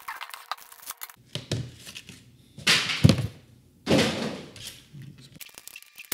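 Cardboard box and clear plastic packaging of a blood glucose meter being opened and handled: scattered rustles and small clicks, two louder rustling bursts about three and four seconds in, and a thump near the three-second mark.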